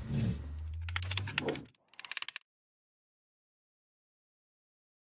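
Low hum with handling noise, then a quick run of sharp clicks, after which the sound cuts off to dead silence.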